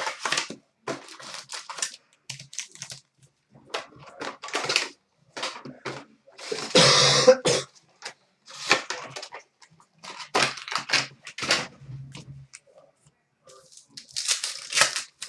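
Opening a sealed trading-card box and its packs: cardboard and plastic wrapper rustling, crinkling and tearing in short bursts, with the longest, loudest rip about seven seconds in.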